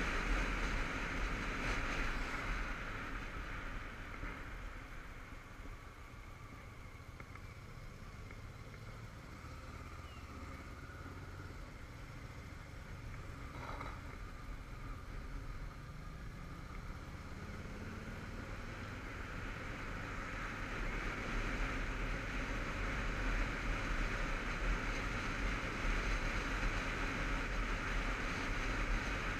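Motorcycle on the move, heard from the rider's camera: wind rush and tyre noise over the engine. It eases off in the first few seconds as the bike slows for a bend, then the engine pulls up through the revs and the noise builds again.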